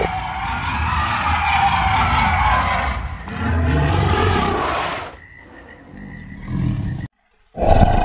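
Sound-effect roars of a wounded Tyrannosaurus rex: one long roar, then a louder roar from about three seconds in that cuts off abruptly about five seconds in. A quieter growl follows, stopping about seven seconds in, and a brief roar comes near the end.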